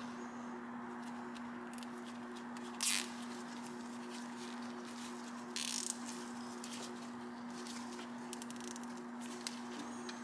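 Plastic zip ties and wiring being handled and fastened: light clicks and rustles, with two short zipping noises about three seconds and five and a half seconds in, the first the loudest, over a steady low hum.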